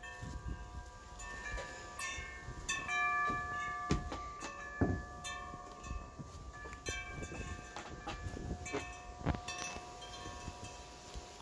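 Wind chimes ringing, several notes struck over and over and left to sound on, with a few dull knocks mixed in.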